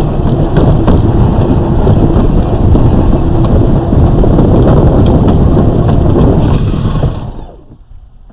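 Power Wheels ride-on toy car driving along a concrete sidewalk: a loud, steady rumble and rattle from its plastic wheels and drivetrain, picked up by a camera mounted on the car's body. The noise cuts away about seven and a half seconds in as the car comes to a stop.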